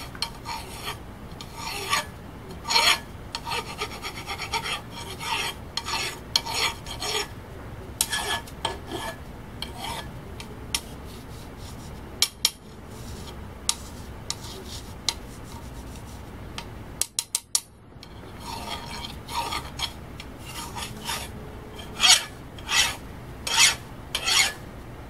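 Hand file stroked across the case-hardened face of a mild steel anvil slab in a series of rasping strokes, with a short break about two-thirds through and louder strokes near the end. The file skates over the steel without biting, a sign that the surface may have hardened.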